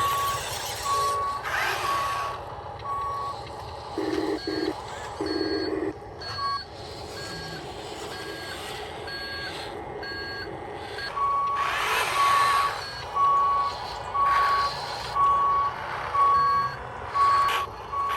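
Reversing beeper on an RC construction vehicle's sound unit, beeping about once a second; it drops out for several seconds in the middle, where fainter higher beeps continue, and comes back strongly about 11 seconds in. Several short bursts of noise come through among the beeps.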